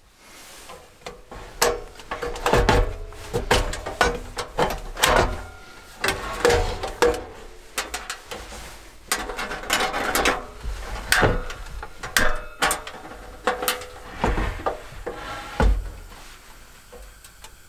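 Irregular knocks, clicks and rubbing from things being handled, some of them wooden-sounding, with a deep thump near the end.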